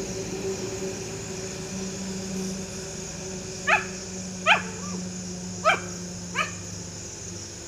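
A dog barks four short, sharp times in the second half, over a steady low hum.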